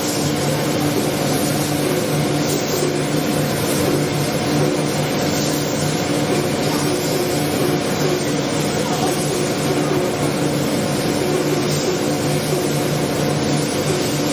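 Steady drone of paint-workshop machinery: a constant hum with several fixed tones under an even rushing hiss, unchanging throughout.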